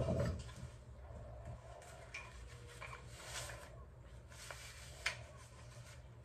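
Faint handling sounds: cloth rustling and small knocks and clicks as a tea towel is put down and a wooden rolling pin is picked up, over a steady low hum. One sharp click about five seconds in.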